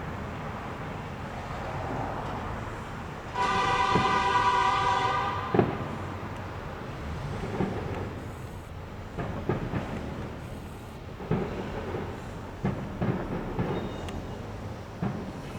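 Fireworks display: a continuous rumble with scattered sharp bangs and crackles, several of them in the second half. About three and a half seconds in, a steady horn-like tone sounds for about two seconds and is the loudest thing heard.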